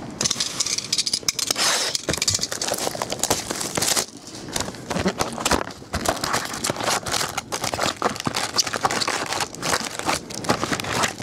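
Topps Chrome baseball card box being opened by hand: paper and cardboard tearing and crinkling, then the foil card packs crinkling and crackling as they are lifted out and stacked.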